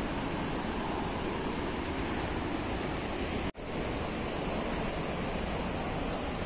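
Heavy monsoon flow at Changey Falls: a steady, full rush of falling water, cut by a momentary gap about halfway through.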